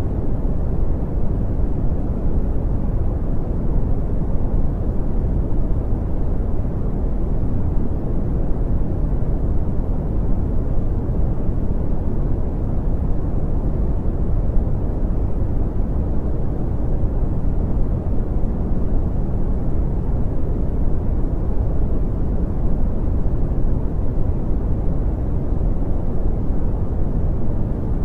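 Brown noise: a steady, deep rumbling hiss with most of its weight in the low end, unchanging throughout.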